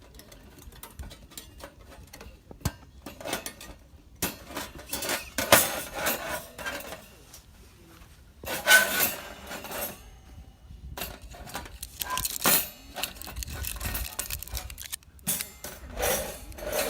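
Metal camp gear being handled: irregular clinks, clicks and clattering, with several louder bursts of rattling.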